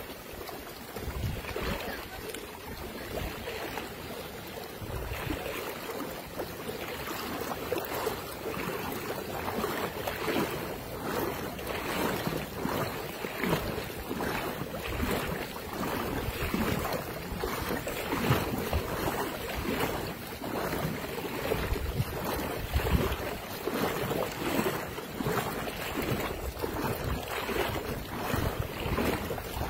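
Floodwater rushing and swirling along a flooded street, a steady wash of water noise, with gusts of wind buffeting the microphone.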